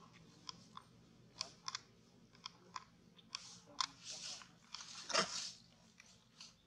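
Dry fallen leaves crackling and crunching as a macaque moves and sits down on them: scattered sharp crackles, with a louder crunch about five seconds in.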